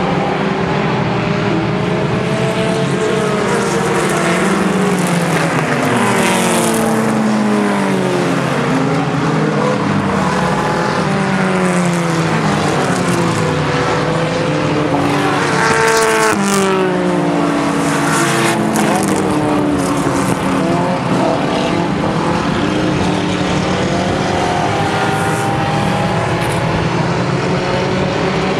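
A pack of dirt-track race cars, old stock sedans, running together around a dirt oval. Several engines overlap, each rising and falling in pitch as the cars accelerate, lift and pass.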